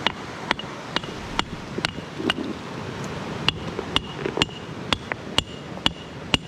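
Steel hammer striking rock to split it open for fossils: sharp blows about twice a second, each with a brief metallic ring.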